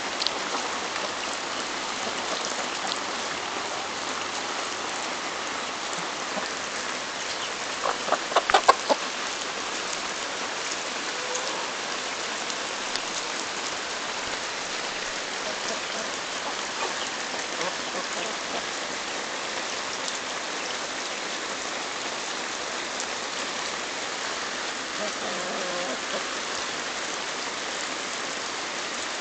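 Rhode Island Red and Buff Orpington chickens pecking corn off a hand-held cob and clucking, with a brief louder flurry about eight seconds in, over a steady hiss.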